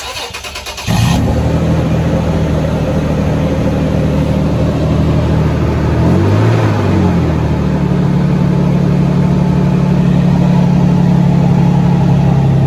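2007 Toyota Tacoma's engine cranked by the starter for about a second, then catching and settling into a steady idle through a large aftermarket exhaust tip. About six seconds in it gives one brief rev that rises and falls back to idle.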